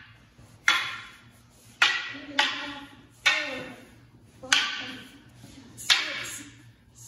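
Wooden jo staffs striking each other in an aikido partner kata: six sharp clacks at uneven intervals, each ringing briefly.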